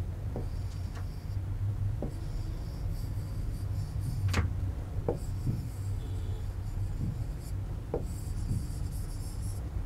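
A pen rubbing across a drawing board in several long strokes, with a few light taps and one sharp click about four seconds in, over a steady low hum.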